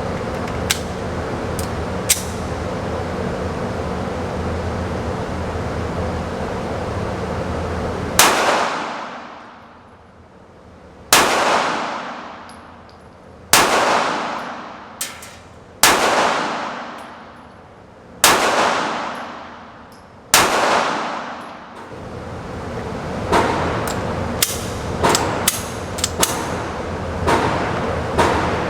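Six shots from a Sig Sauer P365XL 9mm pistol firing Remington ball ammunition, about two seconds apart, each followed by a long echoing tail. A steady hum runs before the shots and again after them, and several light clicks follow near the end.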